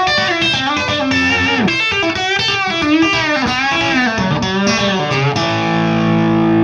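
Electric guitar played through the Orange Kongpressor optical compressor pedal: a quick run of picked, bent notes in a country style, then a chord struck about two-thirds in and held with long, even sustain.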